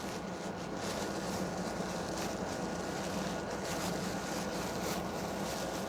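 A steady low hum with an even hiss of room background noise, unchanging throughout.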